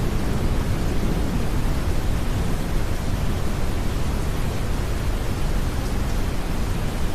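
Steady deep brown noise blended with rain: an even rushing hiss, heaviest in the low end, with no sudden sounds.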